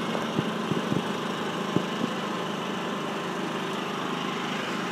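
A car engine idling steadily, with a few soft knocks in the first two seconds.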